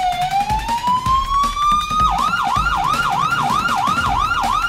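Electronic police siren: a slow wail that dips and climbs again, then at about two seconds in switches to a fast yelp of about three rising sweeps a second.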